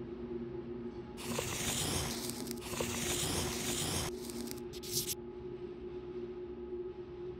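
Paper rustling as notebook pages are flipped, lasting about three seconds from about a second in, then two short rustles, over a low steady drone.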